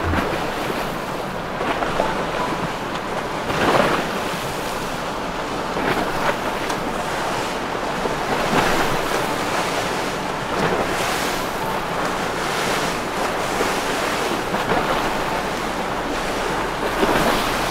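Wind buffeting the microphone in gusts over the wash of water and boat wakes, strongest about four seconds in and again near the end, with a low steady boat-engine hum underneath.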